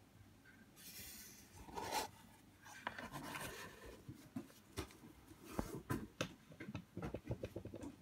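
Faint handling of a leatherette-covered Zippo gift box in gloved hands: rustling and brushing as the lid is closed, then a scatter of light taps and clicks as the box is handled and set down.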